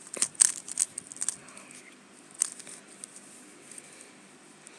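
Magnetic 3x3 speedcube, a Valk 3 Power M, being turned fast by hand: a rapid run of plastic clicks as the layers snap round during the first second and a half, then scattered single turns.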